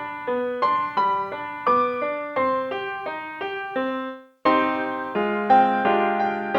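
Piano music: a gentle repeating broken-chord pattern of single notes, about three a second. It breaks off briefly about four seconds in and comes back with fuller, lower chords.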